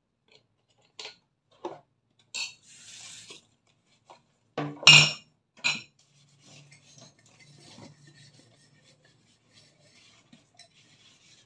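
Dishes being hand-washed in a stainless steel sink: glasses, cups and utensils clink and knock against each other and the sink, loudest about five seconds in. In the second half a sponge scrubs a glass softly.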